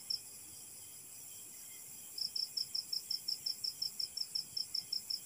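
Insect chirping in the night: two short high chirps at the start, then after a pause a steady run of chirps at about five a second from about two seconds in.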